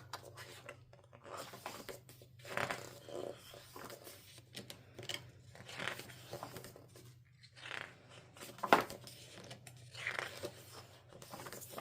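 Paper photobook pages being turned and handled: scattered rustles and soft flicks of paper, with one sharper tap about nine seconds in.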